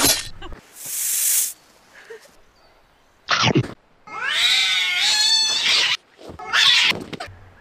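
A drawn-out cat yowl, a caterwaul with wavering pitch lasting about two seconds, starting about four seconds in. It is followed by a short hiss-like burst. Before it come a brief rushing hiss and a thump.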